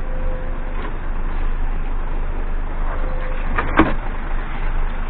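Concrete mixer truck running, a steady low engine hum, with one short sharp squeal a little under four seconds in.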